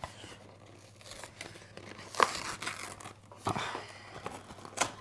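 Cardboard pastry box being torn open by hand: short sharp ripping sounds with rustling between them, the loudest about two seconds in, then again at about three and a half seconds and near the end.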